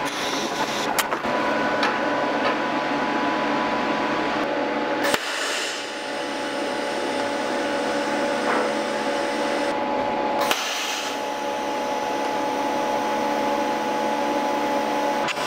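TIG welding a small stainless steel pipe fitting: a steady hiss and hum from the arc and welder, with a break about five seconds in and again about ten and a half seconds in.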